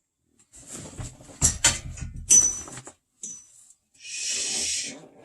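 Close handling of a thermos and coffee cup: a run of clicks and knocks with a short ringing clink, then a steady hiss lasting about a second near the end.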